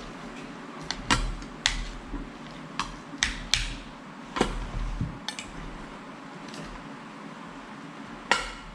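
Utensils and plates clinking as rice and food are dished out at the table: about ten irregular sharp clinks and knocks, some briefly ringing.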